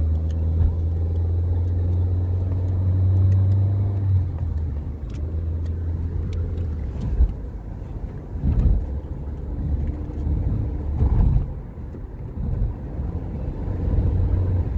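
Car engine and road noise heard from inside the cabin of a moving car: a steady low drone for the first several seconds, then a more uneven low rumble that swells and dips.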